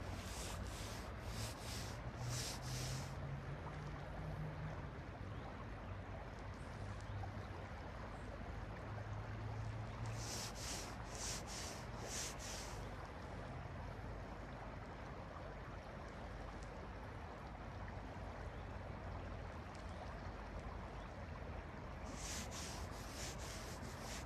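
Steady rush of a flowing river. Three times, about ten seconds apart, comes a group of about four short, high rasping swishes.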